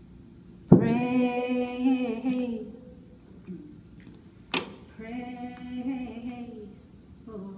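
A woman singing unaccompanied in long held notes, two phrases of about two seconds each, the first starting suddenly and loud, with a third beginning near the end. A single sharp knock falls between the phrases.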